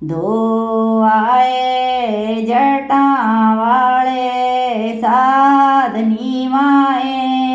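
A woman's voice singing a Punjabi folk wedding song in long, drawn-out held notes that slide from one pitch to the next, with no drum beat.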